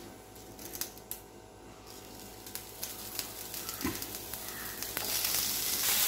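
Panikoorka (Indian borage) leaves sizzling on a hot dosa tawa as they are wilted. There are a few light clicks at first, and the sizzle builds, becoming loud near the end.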